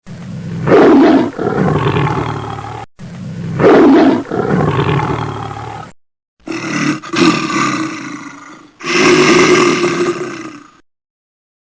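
Loud animal roars in four calls, cut off abruptly one after another; the first two sound alike.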